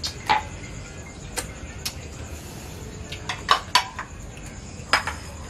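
Scattered light clinks and taps of spoons on plates and dishes during a shared meal: single ticks here and there, with a quick run of three about three and a half seconds in.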